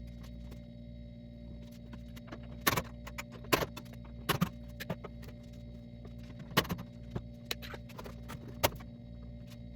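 Irregular sharp clicks and clinks of tools and metal parts being handled while a clothes dryer is taken apart, over a steady low hum.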